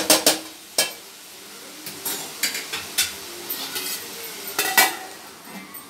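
Metal spatula stirring chopped spiny gourd in an aluminium pot, scraping and clinking against the pot's sides over a faint sizzle. Several sharp clinks come at the start, scattered ones follow, and a louder pair of metal clanks comes about four and a half seconds in.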